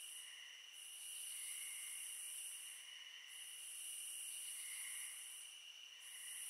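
Faint high-pitched hiss carrying two steady high tones, with a higher layer of hiss that swells and fades about every two and a half seconds.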